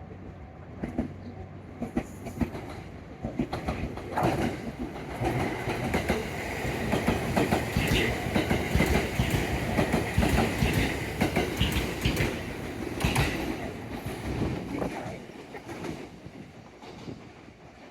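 A train passing close by: wheels clattering over the rail joints, growing louder over several seconds, loudest in the middle, then fading away. A steady high tone runs under the clatter while it is loudest.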